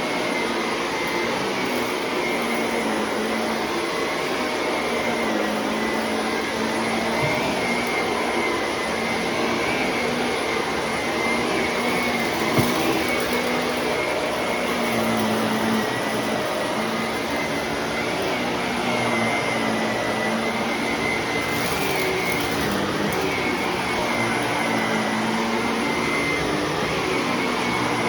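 Shark vacuum cleaner running without a break: a steady motor whine over airflow noise, its pitch wavering slightly.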